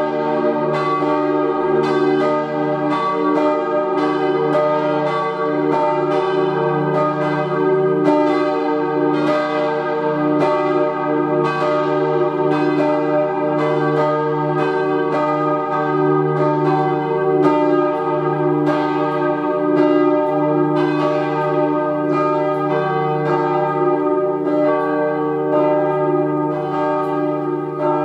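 Swinging church bells of a four-bell peal in E-flat, G, B-flat and E-flat, bronze bells cast by Rüetschi in 1888, ringing together. Overlapping strikes come several times a second over a deep steady hum.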